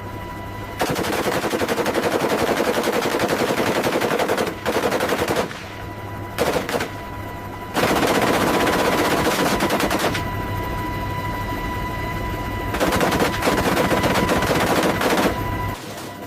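Gatling-type rotary gun firing very rapid fire in several long bursts separated by short pauses, with a steady high tone underneath.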